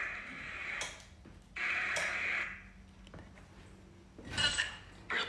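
Necrophonic spirit-box app playing through a phone's speaker: several short bursts of hissing, garbled sound broken by brief pauses, the app's sweep through noise and sound fragments.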